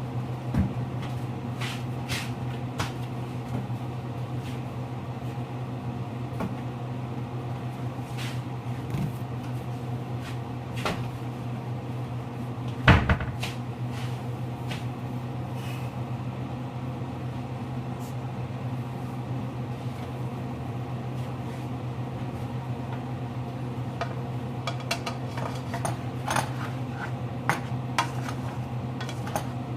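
Kitchen clatter of pots, pans and utensils: scattered clinks and clicks, with one louder knock about halfway through, over a steady low hum.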